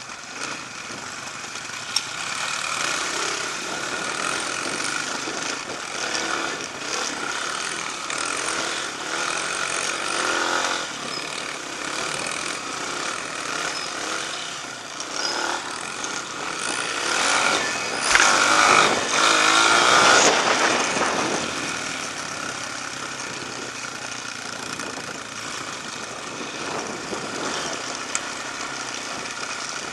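Off-road dirt bike engines running as they ride a trail, with a louder spell of revving a little past the middle.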